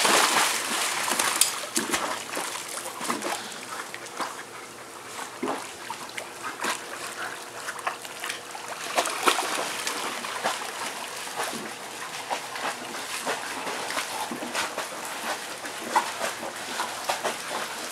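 Two dogs swimming in a swimming pool: heavy splashing for the first couple of seconds, then steady paddling and sloshing water with irregular small splashes.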